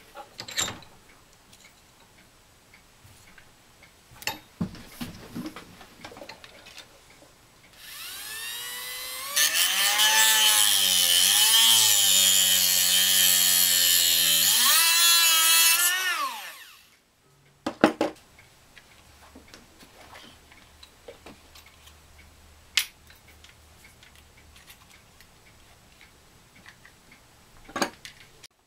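Hand-held rotary tool with an abrasive cut-off disc spinning up about eight seconds in, then cutting through spring-tempered music wire held in a bench vise for about six seconds. The cut is a loud, high grinding hiss, with the motor's whine dipping and recovering as the disc bites, before the tool winds down. A few sharp clicks of handling come before and after.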